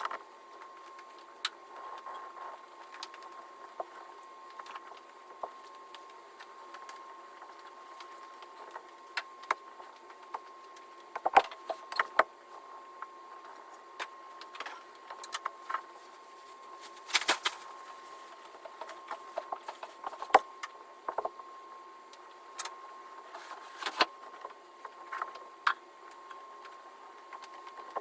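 Irregular clicks, taps and knocks of hand tools and leather-hard clay slabs being handled on a work surface, over a faint steady high-pitched tone.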